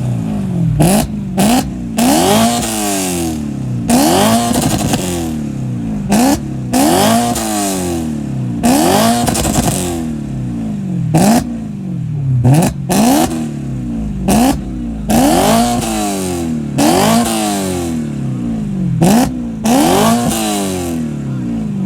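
BMW M car's aftermarket exhaust as the engine is free-revved over and over, about a dozen blips each a second or two apart, the pitch climbing sharply and falling away each time.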